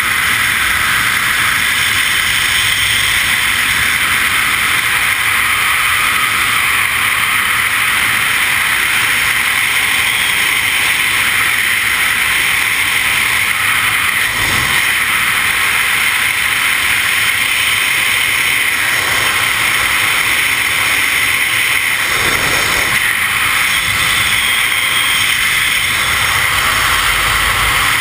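Freefall wind rushing loudly and steadily over a GoPro's microphone during a skydive, with brief deeper gusts a little past halfway and again later on.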